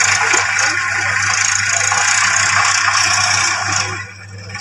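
Small electric motor and gears of a homemade toy tractor running with a steady whir and rattle. The sound drops off sharply about four seconds in.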